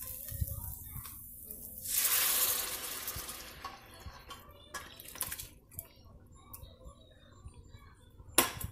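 Boiled mutton and its stock poured from a steel pot into a kadai of fried masala, the liquid splashing in for about a second. Then a few light knocks and one sharp clank near the end, utensils against the metal pan while the meat is stirred in.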